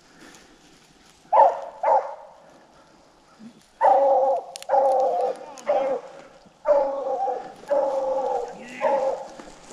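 Rabbit hounds baying as they run a swamp rabbit's trail: two short yelps, then a string of long drawn-out bays.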